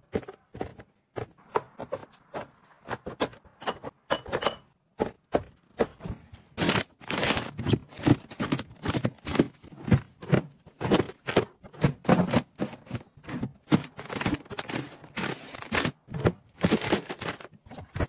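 Hands stocking a refrigerator: a quick run of taps, clicks and plastic rustles as cartons and plastic-wrapped food are set onto shelves and into drawers, busier and louder in the second half.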